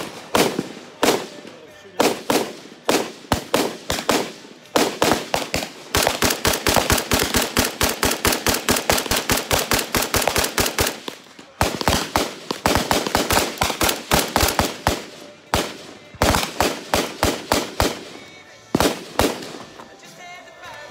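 Century Arms RAS47 AK-pattern rifle in 7.62×39 firing shot after shot: spaced single shots at first, then long fast strings of rapid fire through the middle, slowing again to spaced shots near the end.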